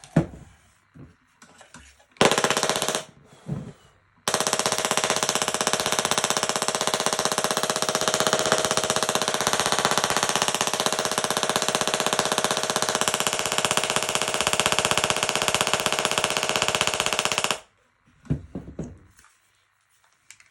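Tesla coil firing its spark discharge, a loud rapid-fire buzz of sparks that holds steady for about thirteen seconds and then cuts off suddenly. About two seconds in, a brief loud hiss comes before it.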